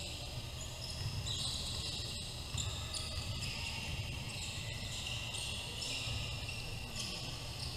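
Live basketball game on a hardwood court: sneakers squeaking in short, high-pitched squeals and a basketball bouncing, over a steady low hum.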